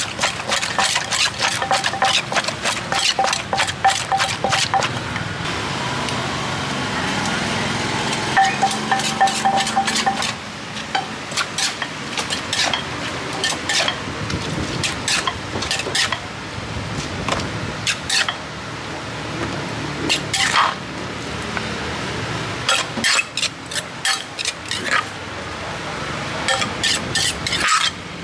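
A wooden pestle knocking and a metal spoon clinking and scraping in a clay mortar as green papaya salad is pounded and tossed. The knocks come fast and close together for the first few seconds, then give way to slower, scattered clinks and scrapes.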